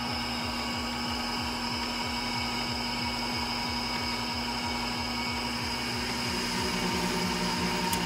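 Emco Maximat V10 metal lathe running at 315 RPM while its tool takes a 20-thousandths cut along a turning bar. It makes a steady machine hum with a regular low pulse about five times a second, and a further whine joins about six seconds in.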